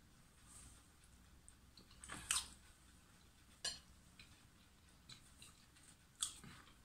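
A person quietly eating a forkful of pasta: faint chewing with a few short mouth sounds, and one sharp click of a metal fork against the plate just past halfway.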